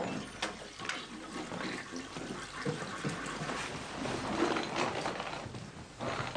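Water running and splashing with small scattered clicks, as from a toilet being flushed or a tap running, a little louder about two thirds of the way in.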